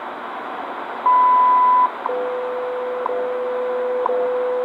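WWV shortwave time signal through the receiver's hiss: the high minute-marker beep, about 0.8 s long, sounds about a second in to mark the top of the minute. A steady lower tone then follows, broken by a short tick each second.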